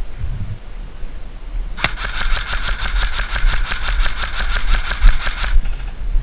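Airsoft electric gun firing one long full-auto burst of almost four seconds, a rapid, even mechanical rattle that starts sharply about two seconds in and cuts off suddenly.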